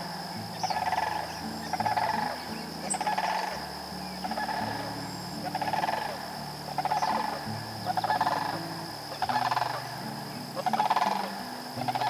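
A chorus of frogs calling at a lakeshore in short pulsed trills, one after another about every second, over a steady high-pitched insect drone.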